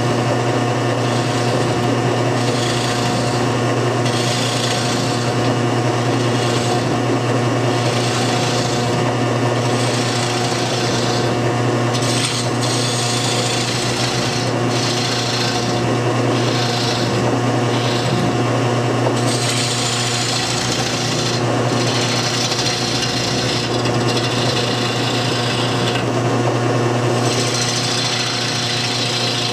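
Homemade wood lathe running with a steady motor hum while a hand-held turning tool hollows out the centre of a spinning wooden bowl blank. The cutting is a shaving, scraping noise that comes and goes in repeated passes about a second long.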